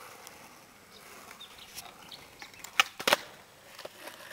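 Skateboard pop shove-it on asphalt: two sharp wooden clacks close together about three seconds in, the tail popping off the street and the board landing back under the feet.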